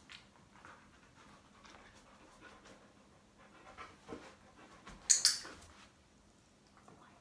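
A poodle panting, with soft scuffs and clicks as it moves. About five seconds in comes a brief loud hiss-like burst, the loudest sound.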